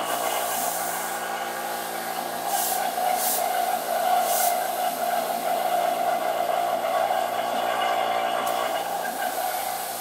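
A 7 CFM HVAC vacuum pump running steadily with a busy, engine-like mechanical drone while it pulls vacuum on a refrigerator compressor to draw new oil in. A few short hisses come about three to four and a half seconds in.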